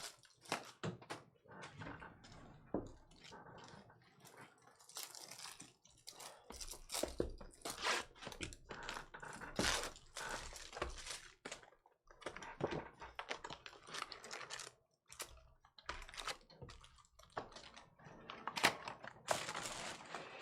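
Sealed boxes and foil packs of trading cards being opened by hand: irregular crinkling and tearing of wrappers, with small clicks and taps of cardboard and cards.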